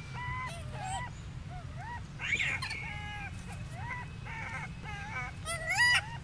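Macaques giving repeated short, high coo calls, each rising and falling in pitch, about two a second, with louder calls about two seconds in and near the end.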